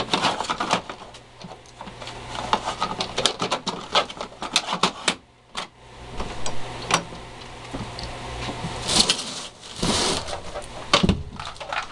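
Hard plastic dog-door flap clattering as a dog pushes through it: a quick run of clicks and knocks against the frame that dies away after about five seconds. Near the end, rustling from the camera being handled.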